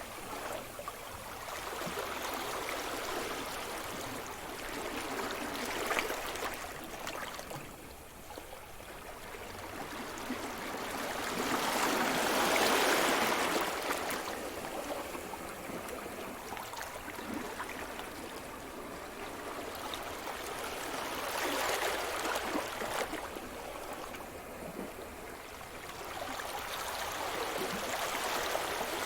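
Sea surf: waves breaking and washing up a shore, the rush swelling and easing in slow surges every several seconds, loudest about twelve seconds in.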